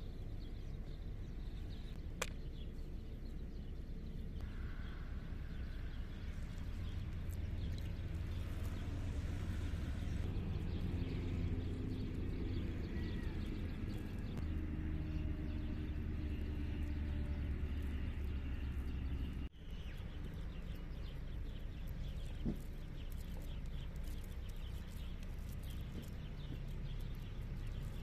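Outdoor background with a steady low wind rumble on the microphone and faint scattered ticks and rustles.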